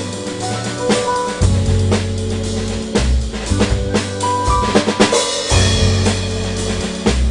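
A jazz-fusion trio of electric guitar, bass and drum kit playing live, with sustained bass notes, guitar chords and busy drumming on snare, bass drum and rimshots.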